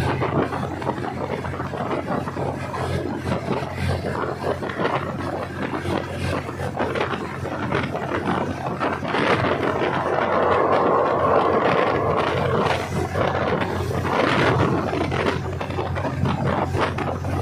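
Diesel railcar running, a steady engine drone with a dense rumble of wheels on track. It grows louder for several seconds in the middle.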